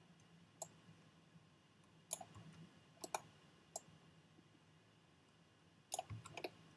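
Scattered clicks of a computer mouse and keyboard: single clicks every second or so, then a quick run of several clicks near the end, over a faint low hum.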